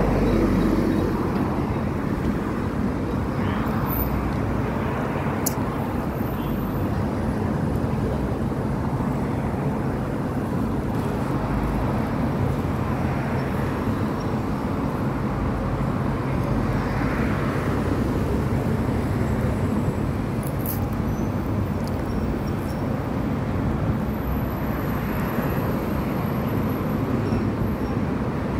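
City road traffic: a steady noise of car engines and tyres, with a few swells as cars drive past close by.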